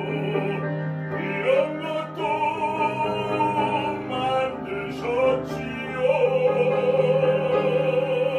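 Bass voice singing a Korean art song in operatic style over grand piano accompaniment, ending on a long held note with vibrato that grows louder about six seconds in.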